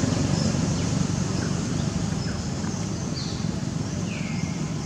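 A steady low rumble of background noise, with a few faint, short bird chirps high above it.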